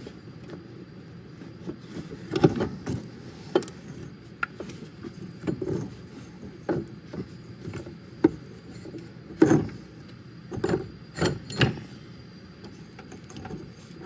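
Irregular metal clunks and knocks as an alternator is worked out of a tight engine bay by hand, its body knocking against the surrounding engine parts. The sharpest knocks come about two seconds in and twice more past the middle.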